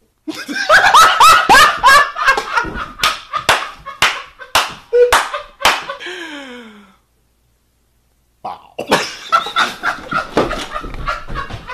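A man laughing hysterically in two loud bouts with a short pause between, the laughs broken by sharp smacks about twice a second. The first bout trails off in a falling wheeze.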